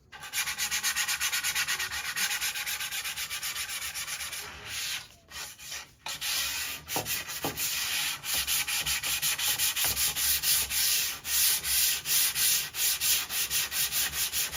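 180-grit sandpaper rubbed by hand back and forth along a wooden ceiling fan blade in quick, even strokes, several a second, smoothing its rough surface. The strokes break off briefly about five and six seconds in.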